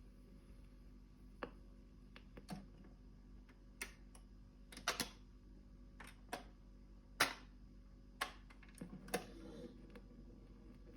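Irregular clicks and knocks, about ten over nine seconds, from a 1960s Dansette Conquest Auto record player being worked between records.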